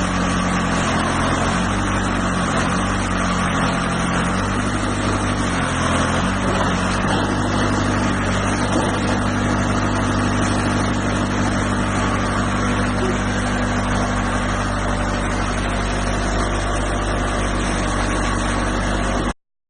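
Heavy equipment engine running under load, its note shifting up and down a few times in the first several seconds and then holding steady over a noisy mechanical rumble. It cuts off abruptly near the end.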